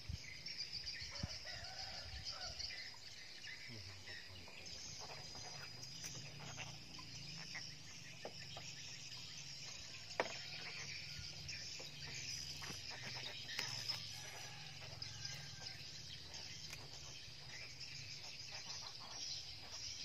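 Chickens clucking over a steady outdoor background hiss, with a few faint clicks and one sharper click about halfway through.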